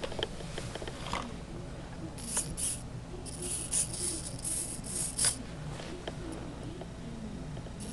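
Small electric RC helicopter, an E-Sky Honey Bee fixed pitch, giving a series of short, hissy rattling bursts from about two seconds in.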